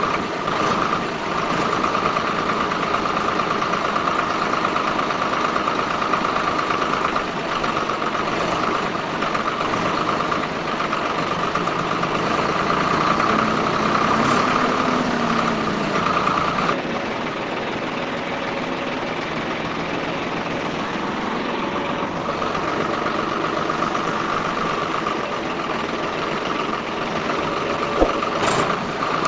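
Small electric motor and gearbox of a homemade model tractor running, a steady whine that weakens for a few seconds past the middle and then comes back.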